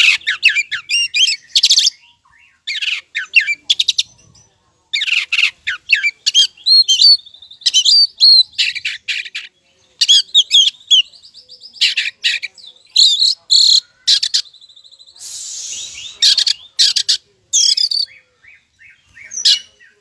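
Oriental magpie-robin (white-bellied kacer) singing insistently: loud bursts of rapid whistled notes and trills broken by short pauses, with a harsh rasping note about fifteen seconds in.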